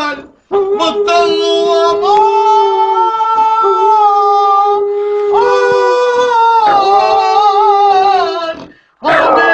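A husky howling in long drawn-out notes while a man howls along at a lower, steadier pitch, the two voices sounding together. Both break off briefly about half a second in and again near the end.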